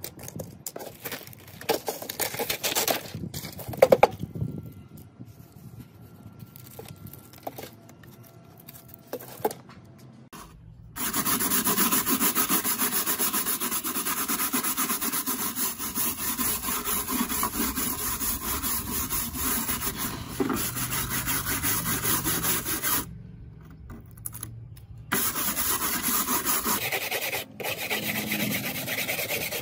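Light clicks and handling noises, then, about a third of the way in, a loud steady abrasive rubbing with a thin high steady tone over it. It stops briefly twice near the end.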